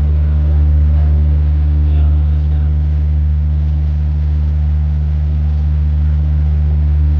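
Boat engine running with a steady, deep drone, heard on board.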